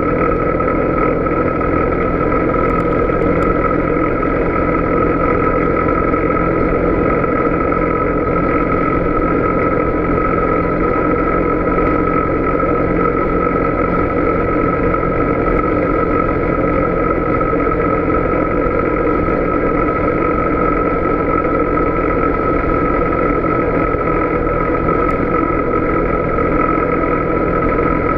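Polaris Sportsman 570 Touring ATV's single-cylinder engine running at a steady cruising speed on a dirt road, its pitch holding constant with a steady high whine above the engine note.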